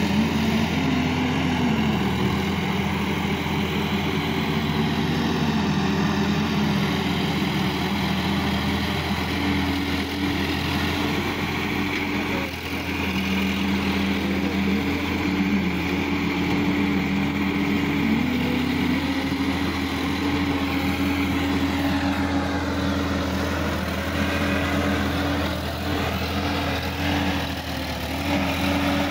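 Sonalika DI-50 RX tractor's diesel engine running as the tractor works through a flooded, muddy paddy field. The engine speed shifts up and down every few seconds.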